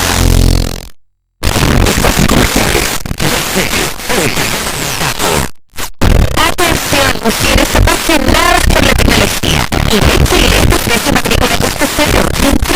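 Distorted FM radio on a mobile phone tuned just off a station's frequency: loud static hiss with garbled fragments of the station's speech and music wavering through. The sound drops out to silence briefly about a second in and again just before six seconds.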